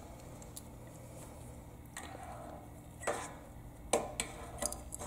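Scattered light metallic clicks and scrapes of long needle-nose pliers working inside a Briggs & Stratton engine's intake port while fishing out a loose throttle plate. The clearest clicks come about three and four seconds in.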